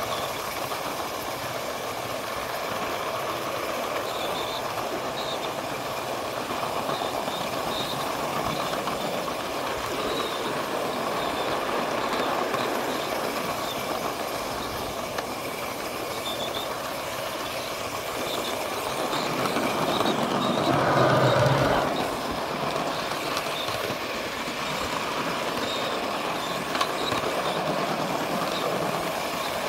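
Ride-on miniature train, a scale K-28 locomotive pulling riding cars, rolling along backyard track: a steady rushing of wheels on rail. The noise swells louder for about two seconds roughly two-thirds through, then settles back.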